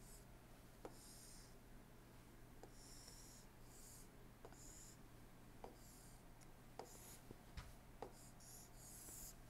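Faint stylus strokes on a tablet while drawing: short scratchy swipes, each often starting with a light tap as the pen touches down, around eight in all and coming closer together near the end, over a low steady hum.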